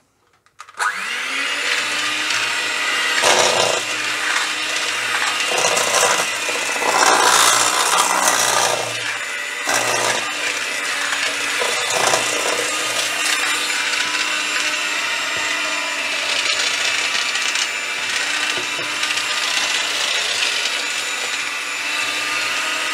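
Shami electric hand mixer switched on about a second in and running steadily, its beaters whirring through thick cake batter of flour and milk. The sound grows louder and rougher for short stretches at times.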